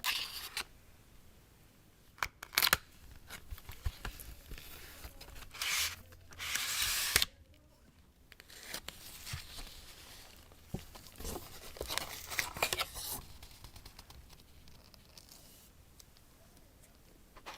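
Smartphone box being unboxed: plastic wrap and seals tearing, packaging crinkling, and handling clicks. Irregular rasps come throughout, the longest and loudest about six to seven seconds in.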